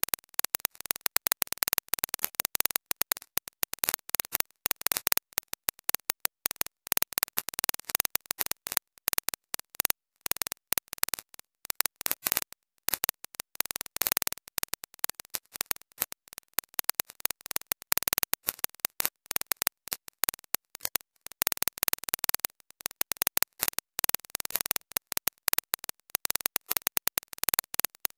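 Background music that cuts in and out many times a second, a choppy, stuttering sound.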